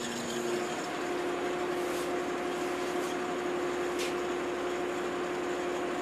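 Steady hum of a research vessel's machinery with a fixed low tone over a background rush, with a few faint high clicks about a second apart near the middle.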